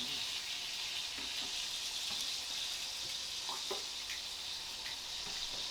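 Chicken frying in a hot pan, a steady sizzle.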